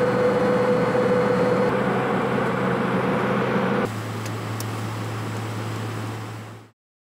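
Airliner cabin noise in flight: a steady engine and airflow drone with a low hum. It drops a little in level about four seconds in, then fades out shortly before the end.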